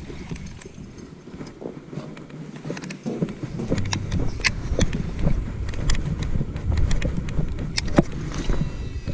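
Handling and rubbing noise on a body-worn camera as the wearer moves, with scattered clicks and knocks and footsteps. A low rumble grows louder from about three and a half seconds in.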